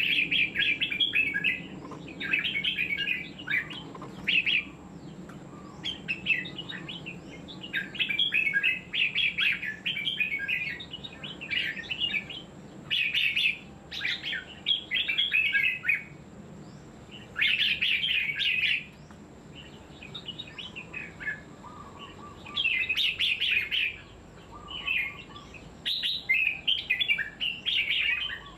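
Red-whiskered bulbul in a cage singing: bursts of quick, bright chirping phrases, each about a second or two long, repeated again and again with short pauses between them.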